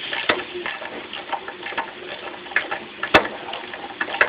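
Scattered light clicks and knocks as tools and plastic front-end parts of a car are worked loose, with one sharp click about three seconds in.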